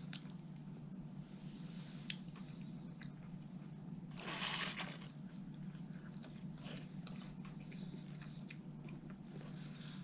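Close-miked chewing and biting of fast food, with scattered small mouth clicks and one louder noise lasting under a second about four seconds in, over a steady low hum.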